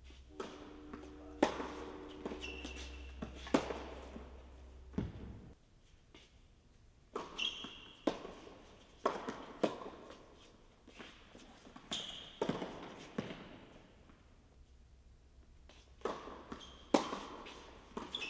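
Tennis balls struck by racquets and bouncing on an indoor hard court during a doubles rally: a string of sharp pops about a second apart, each echoing in the hall. Short high squeaks of court shoes follow several of the hits.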